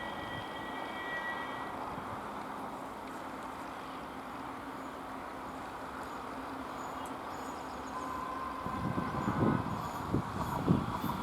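Express train hauled by a WAP-5 electric locomotive approaching on the rails. About eight seconds in, its wheels start a rhythmic clatter over the rail joints as it runs through.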